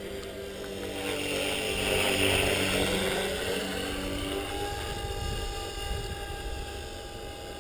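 Align T-Rex 450 Pro electric RC helicopter in an EC135 scale fuselage flying by. Its rotor and motor make a steady whine that grows louder about two seconds in as it passes close, then eases off.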